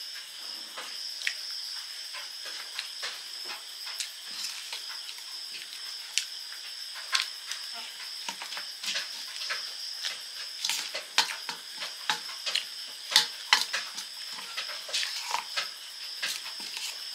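Eating sounds: a spoon clicking and scraping on a steel plate and crunchy chewing of puffed rice and fried fritters. The sharp clicks come more often in the second half, over a steady high-pitched whine in the background.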